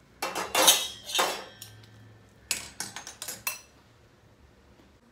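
Metal spoon scraping and clinking against a glass mixing bowl while stirring rice flour into a dough. A burst of scraping in the first second and a half, then a quick run of sharp clinks around the middle, and then it stops.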